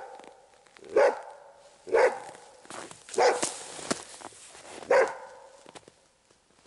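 Hunting dog barking at a sable treed above it: single sharp barks about once a second, stopping a little before the end.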